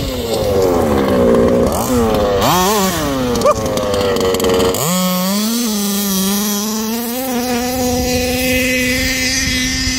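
The two-stroke petrol engine of a teal 1/5-scale 5B RC buggy, revving up and down under the throttle. It gives quick blips about two to three seconds in, then climbs sharply and holds a steady high rev from about five seconds in.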